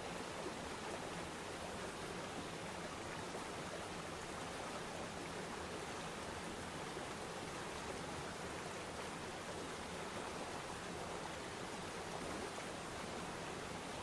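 Waterfall and shallow river rapids rushing steadily: an even wash of moving water with no single splashes standing out.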